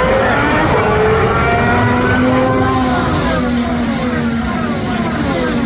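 IndyCars' twin-turbocharged V6 engines running at speed on the track, several cars in quick succession, the overlapping engine notes each falling in pitch as the car goes by.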